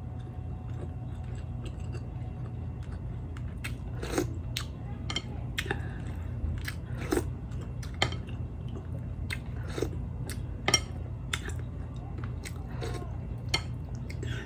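Close-miked chewing and biting of food, with irregular wet mouth clicks every half second to a second over a low steady hum.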